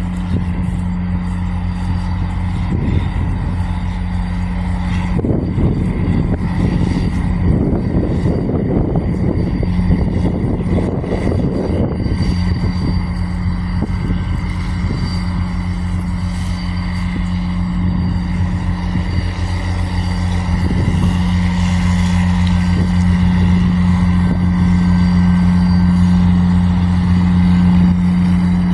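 Diesel locomotive engine running with a steady low drone as an excursion train moves past, with rough rumbling noise for several seconds in the first half. It grows louder toward the end.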